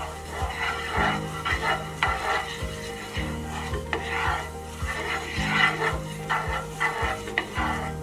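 Fennel seeds sizzling in hot gingelly oil in a frying pan while a utensil stirs them, with repeated short scrapes and taps against the pan.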